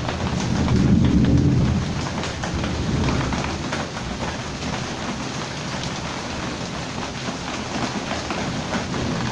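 Heavy rain falling steadily, with many close drop impacts, and a deep roll of thunder that swells about half a second in and fades by two seconds in.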